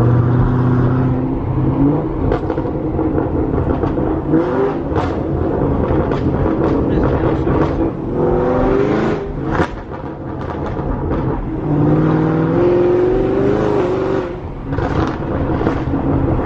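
Camaro SS 6.2-litre V8 with catless long-tube headers and a tune, heard from the cabin while driving. The engine note rises and falls several times as the car accelerates and shifts, with sharp exhaust crackles and pops scattered through it.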